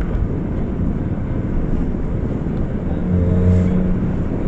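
Car engine running with the exhaust blowing out through a broken flexible exhaust joint: a loud, steady, low rasping noise. About three seconds in, a steadier droning tone comes through for under a second.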